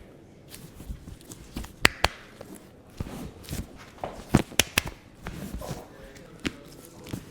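Sharp clicks and knocks at uneven intervals during a hands-on chiropractic adjustment: a pair about two seconds in, a quick cluster a little past four seconds, and another single knock near the end.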